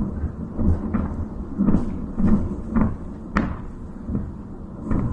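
Munitions detonating in a burning ammunition depot, heard from afar as a rapid, uneven run of deep booms, about eight in five seconds, one sharper crack about three and a half seconds in.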